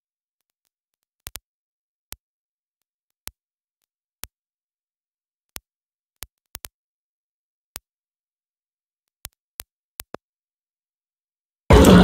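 Dead silence broken by about a dozen short, sharp clicks at irregular intervals; near the end a loud noisy sound breaks in abruptly.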